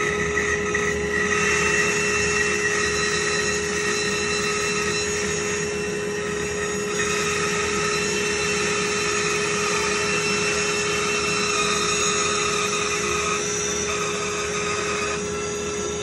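Bandsaw running steadily while its blade cuts a curve through a hardwood board, a constant hum under a high whine that shifts pitch a few times as the board is fed through.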